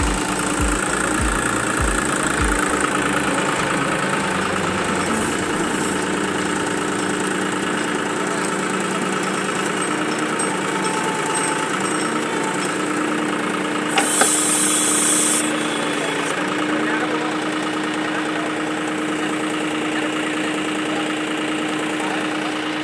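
Diesel engine of a tractor-mounted backhoe loader running steadily, with a few low thumps in the first couple of seconds and a short hiss about 14 seconds in.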